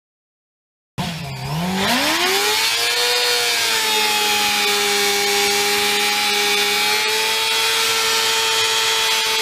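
Silence for about a second, then a Honda CBR sport bike's engine revs up sharply and is held at steady high revs while doing a stationary burnout, with the rear tyre spinning on the pavement.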